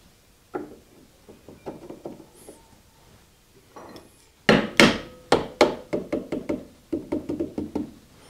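A mallet tapping the end of an old repulsion-induction motor's housing to seat it back together. A few light taps come first, then about halfway through louder strikes that ring briefly, ending in a quick run of taps.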